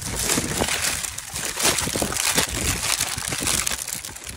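Clear plastic bag crinkling and rustling as it is handled and rummaged through close to the microphone, a dense run of rapid crackles.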